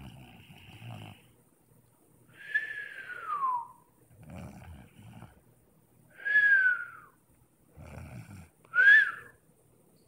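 Cartoon-style snoring voiced by a person: a low rasping snore followed by a whistle that falls in pitch, three times over, the whistles the loudest part.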